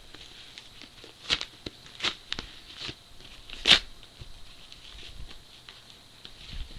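A book's mailing package being opened by hand: a run of crackles and sharp rips of packaging, the loudest about three and a half seconds in.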